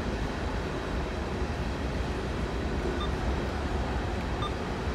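Empty coal train's hopper cars rolling past, a steady rumble of steel wheels on rail.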